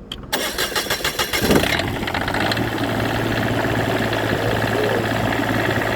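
Cummins Onan 7.5 kW quiet diesel generator cranking on its starter for about a second and a half, then catching and settling into a steady run. This is its first start after a rebuild, with the fuel system freshly primed.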